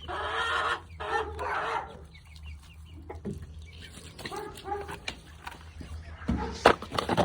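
A freaked-out chicken clucking loudly for about the first two seconds, then more quietly. A few sharp knocks come near the end.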